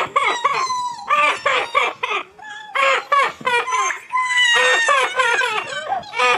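Chickens clucking and squawking in a rapid, continuous run of short calls, several overlapping at once.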